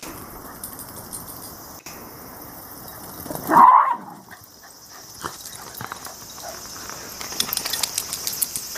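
Shiba Inu dogs at rough play: one gives a single short, loud bark about three and a half seconds in. Light ticking of paws and claws on concrete follows, growing busier near the end.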